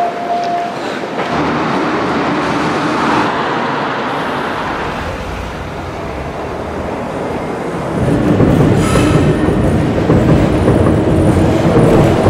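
Commuter train running past with a steady rumble of wheels on rails, growing louder about eight seconds in.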